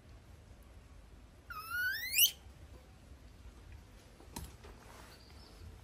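A baby monkey gives one high-pitched call about a second and a half in, sweeping steeply upward in pitch for just under a second. A faint click follows a couple of seconds later.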